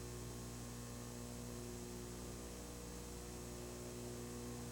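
Steady electrical mains hum with a faint hiss; no other sound stands out.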